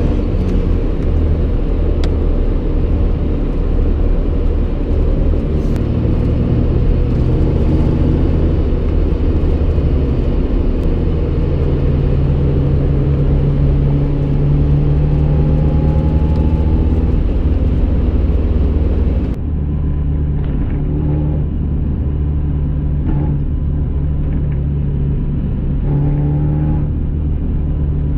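In-cabin sound of a 1990s Honda Civic hatchback on the move: its four-cylinder engine runs under a dense road rumble, rising in pitch as it pulls through a gear, with scattered small rattles and clicks from the loose, worn interior. About two-thirds through, the sound abruptly turns duller and a little quieter.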